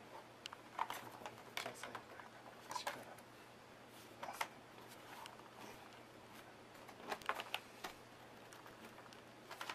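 Scattered light plastic clicks and knocks as a laptop's bottom access cover is pressed down by hand and the laptop is handled. The cover won't snap shut.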